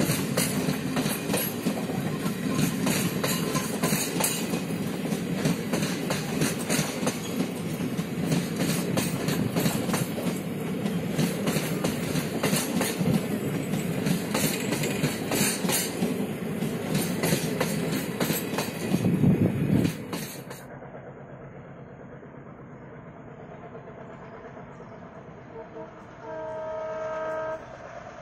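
Passenger coaches speeding past close by, their wheels clattering over the rail joints in a dense run of clicks. The clatter stops abruptly about two-thirds through, leaving a quieter steady background, and near the end a diesel locomotive's horn sounds once for about a second and a half.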